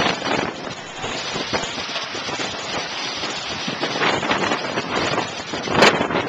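Water churning and splashing against the side of a boat, with wind on the microphone. A sharp knock about six seconds in.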